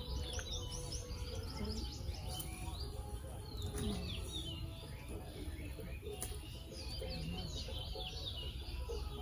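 Small birds chirping and twittering again and again, over a steady low background rumble.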